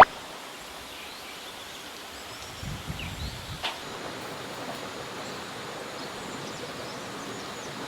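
Steady outdoor background hiss with a few faint, short chirps and a soft knock about three and a half seconds in.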